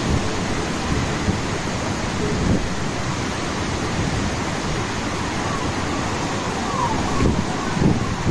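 Heavy rain pouring steadily in strong, gusty wind. Gusts buffet the microphone with low rumbles, most often near the end.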